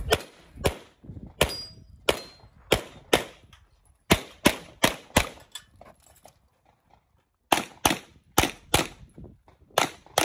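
Semi-automatic pistol fired rapidly at IPSC targets: about seventeen shots, mostly in quick pairs, with a pause of about a second and a half a little past halfway before the firing starts again.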